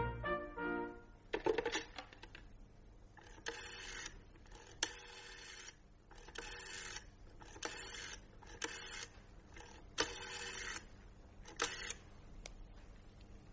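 The closing chord of the brass theme music dies away in the first second. Then comes a rotary telephone being dialled: about eight short whirring clatters, each a dial return, spaced a second or so apart.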